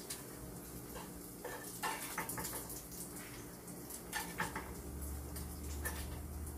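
Chopsticks clicking and scraping against a frying pan and a plate as pieces of cooked meat are picked up and turned, with a few scattered clicks.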